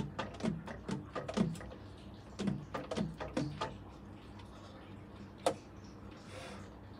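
Metal keys of a Yamaha tenor saxophone clicking and clacking as its keywork is handled and worked loose during disassembly, several key cups closing on the tone holes with short hollow pops. There is a fast run of clacks over the first few seconds, then a single sharp click and a brief hiss.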